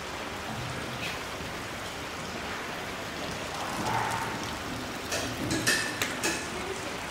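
Steady hiss of rain, with a few sharp clicks a little past the middle.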